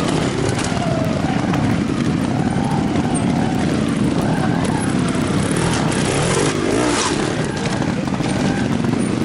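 Trial motorcycle engines running at low revs, with a few brief rises and falls in pitch from the throttle.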